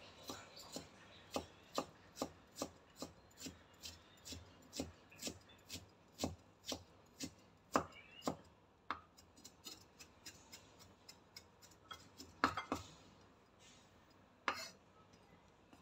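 Cleaver chopping ginger on a wooden cutting board: steady knife strikes, about two to three a second, that thin out to a few scattered chops near the end.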